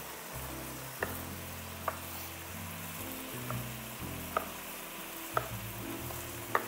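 Chicken adobo frying in a wok with a steady sizzle, and a wooden spoon clicking against the pan about once a second as it is stirred.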